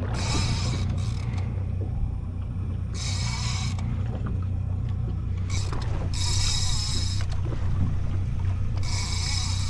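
Fishing reel sounding in short high-pitched bursts, five times, as a hooked fish is fought on a rod and reel. Under it runs the steady low hum of the boat's idling outboard motor.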